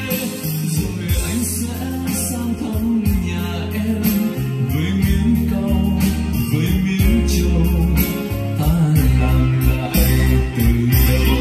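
A song with singing and a strong bass line, played through a hi-fi system's loudspeakers with a Yamaha Q2031A graphic equalizer in the signal chain, as a listening test of the equalizer.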